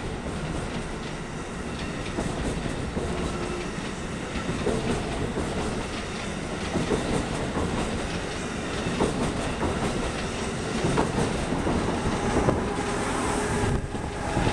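Amtrak train of stainless-steel Amfleet coaches passing at speed, a continuous rumble with wheels clicking over the rail joints. Near the end the ACS-64 electric locomotive at the rear goes by, bringing a brief rise in high-pitched hiss.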